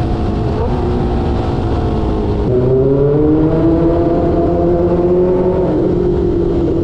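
Suzuki GSX-R600 K5's inline-four engine running through an SC Project aftermarket exhaust while riding, with rushing noise underneath. About two and a half seconds in the engine gets louder and its pitch climbs steadily, then it settles a little lower near the end.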